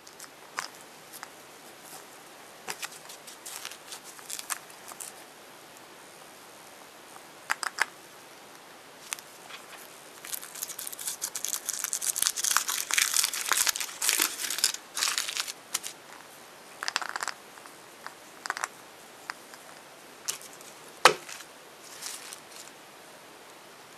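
Foil wrapper of a chocolate egg crinkling and tearing as it is peeled off by hand, in scattered crackles at first, then a dense stretch of crinkling midway. Near the end a single sharp snap as the hollow chocolate shell is broken open.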